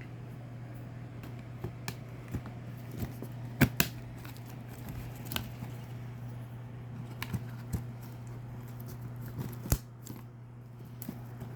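A cardboard shipping box and its packing being handled and opened by hand: scattered light clicks and rustles, with two sharper knocks, one about three and a half seconds in and one near ten seconds, over a steady low hum.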